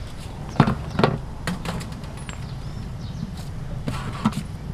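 A few sharp knocks at uneven intervals: two close together about half a second apart near the start, then softer ones, and another near the end.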